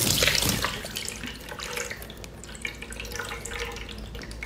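Wet slurping and sucking as a large piece of chili-oil-marinated seafood is bitten and sucked on, loudest in the first second, then softer wet smacks and clicks of chewing.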